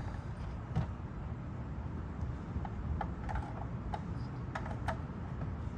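Light plastic clicks and taps as the backup light socket and tail light housing are handled and fitted back into place, several coming in quick pairs, over a low steady background rumble.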